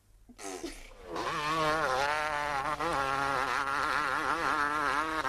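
Dirt bike engine revving, starting about a second in, its buzzing pitch wavering up and down.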